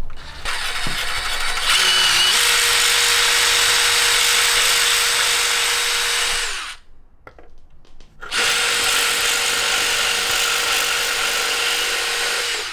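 Cordless DeWalt drill spinning a step drill bit through the fiberglass rail of an extension ladder, in two steady runs of about six and four seconds with a pause of nearly two seconds between them.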